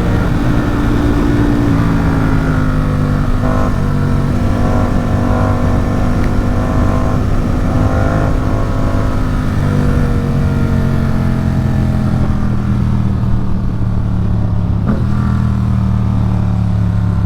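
Ducati Supersport 950 S's 937 cc L-twin engine with a Competition Werkes aftermarket exhaust running under way, its revs sliding slowly and steadily down as the bike eases off. Wind rush is mixed in and fades in the last few seconds, and a brief click comes near the end.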